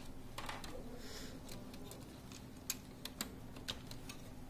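Small plastic clicks and taps of wire-harness connectors being handled and pushed into a laser printer's circuit board, irregular and scattered, over a steady low hum.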